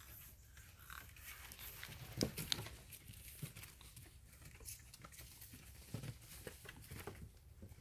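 Shar-pei puppies scuffling as they play together: scattered soft scrapes and knocks of paws on rubber matting and wooden boards, with two sharper knocks a couple of seconds in.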